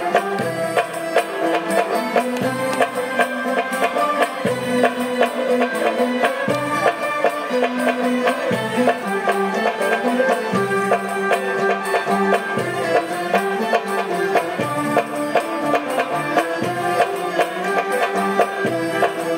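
Traditional string ensemble of ouds, mandolins and violins playing a brisk, rhythmic piece of many quick plucked notes.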